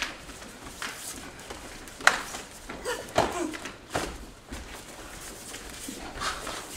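Irregular sharp slaps and thuds of kenpo strikes and bare feet on a padded mat, a second or so apart.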